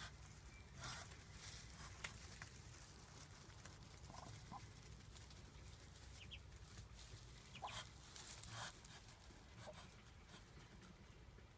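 Muscovy ducklings and their mother, faint: a few short, soft calls scattered through, with brief rustles in the straw bedding.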